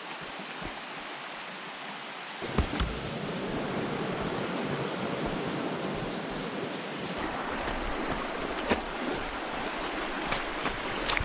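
Steady rushing of river water. It fills out lower about two seconds in, and a few sharp knocks come near the end.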